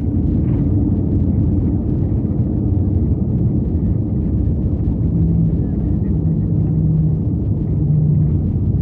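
Loud, steady low rumble of an Airbus A321neo's engines and airflow heard inside the passenger cabin, with a faint low hum coming and going in the second half.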